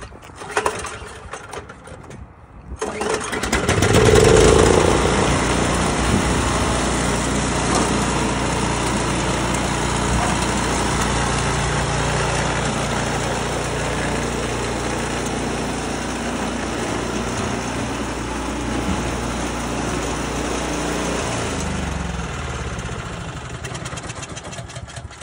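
A two-stage snowblower's small gasoline engine starts about three seconds in, runs briefly louder, then runs steadily while the machine is walked up ramps into a truck bed. The engine sound dies away near the end.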